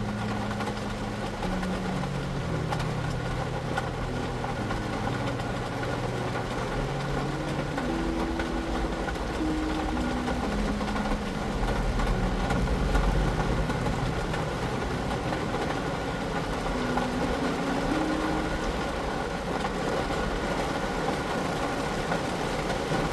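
City street traffic: vehicle engines running, with a low rumble that swells about halfway through. A slow, soft melody of stepping low notes plays over it.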